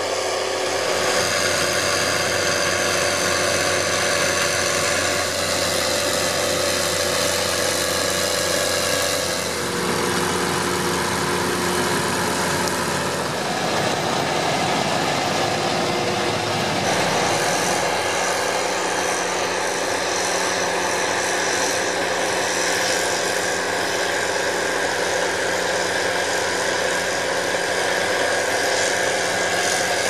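New Holland tractor engines running steadily under load as they pull an AVR Apache four-row trailed potato harvester and its unloading trailer through the field. The engine note shifts about ten seconds in, again a few seconds later, and once more about halfway through.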